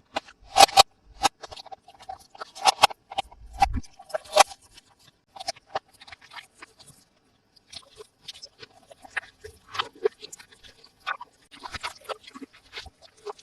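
Hands unboxing plastic-packaged toys: irregular crinkling, clicks and taps of plastic, with a short pause about halfway through.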